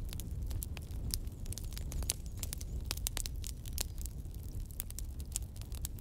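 Wood bonfire crackling: many sharp, irregular pops and snaps over a low, steady rumble.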